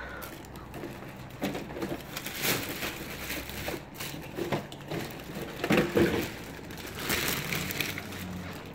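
Clear plastic packaging bag rustling in irregular bursts as it is pulled and handled off an RC crawler truck, loudest about six seconds in.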